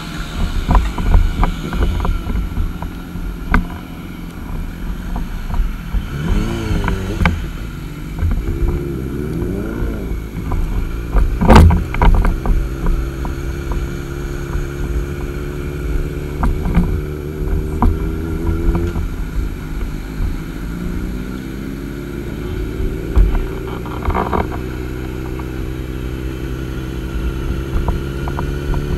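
Sport motorcycle engine idling steadily, its pitch rising and falling now and then, with a low rumble and scattered knocks on the helmet-mounted camera; one sharp knock near the middle is the loudest sound.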